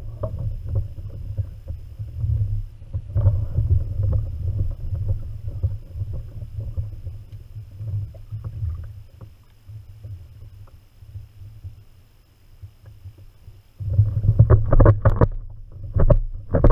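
Kayak-mounted camera picking up a steady low rumble with scattered small knocks and clicks while a bream is fought on rod and reel. About fourteen seconds in, a louder burst of knocks and clatter.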